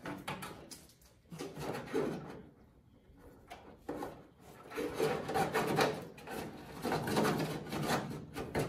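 A wire being pulled out along the underside of a car hood, rubbing and scraping against the hood and its clips in uneven strokes. The rubbing is sparse at first and gets denser and more continuous in the second half.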